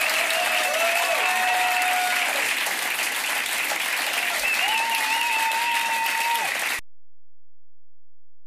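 Audience applauding, with a few long held cheers over the clapping. It cuts off abruptly about seven seconds in.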